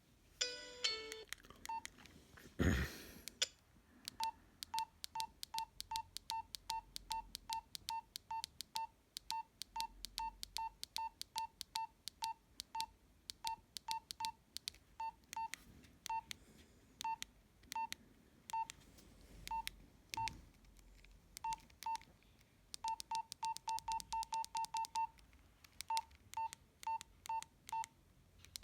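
Nokia 112 keypad tones: short single-pitched beeps, one per key press, each with a faint button click, coming about two a second with a fast run of presses near the end. A short falling run of tones and a loud thump sound near the start.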